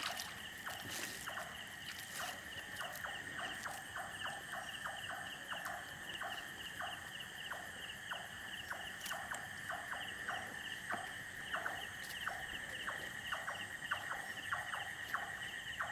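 Night chorus of insects and frogs: a steady high trill from insects, with frogs calling in short, quickly repeated clicking notes.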